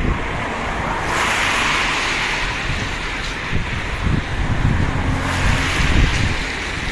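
Road traffic passing on a rain-wet road, the tyre hiss swelling and fading twice, with wind gusting on the microphone in the second half.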